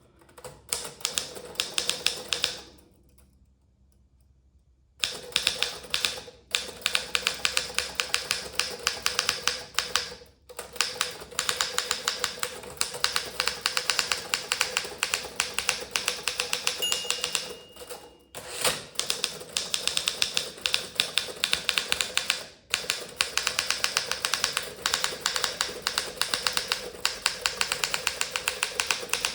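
German-made Remington Senior Writer (Torpedo 17a) manual typewriter being typed on fast: a rapid clatter of typebars striking the platen. The typing stops for about two seconds near the start and breaks off briefly a few times.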